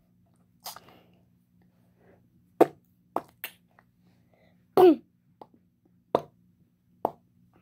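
A child imitating an RPG being fired with his mouth: a string of short, sharp pops and bursts about a second apart, the loudest ones about a third of the way in and near the middle, one of them with a quick falling pitch.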